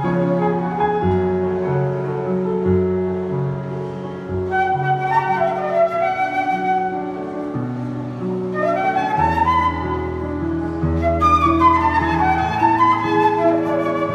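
Live flute and keyboard duo: a flute melody with several quick runs up and down over held keyboard chords and bass notes.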